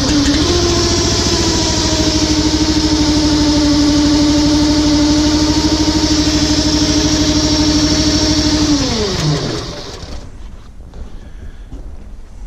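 Struck Magnatrac RS1000 compact crawler's engine running steadily, then shut off about nine seconds in, its pitch falling as it winds down to a stop.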